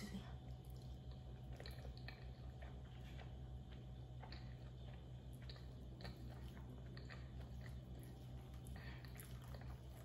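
Close-up chewing of creamy pasta and parmesan-crusted chicken, with small wet mouth sounds and scattered clicks of a fork against the plate as the chicken is cut, over a low steady hum.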